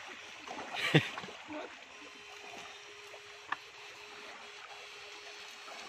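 Water moving and sloshing in a shallow river, with a loud sudden impact about a second in and a single sharp click a little after the middle. A faint steady hum sets in about two seconds in.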